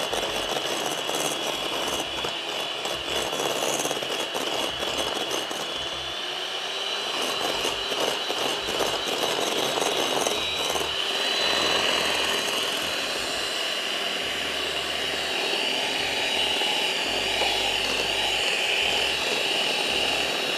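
Electric hand mixer running steadily, its beaters whisking beaten eggs in a glass bowl. It gives a constant motor whine that steps up slightly in pitch about six or seven seconds in.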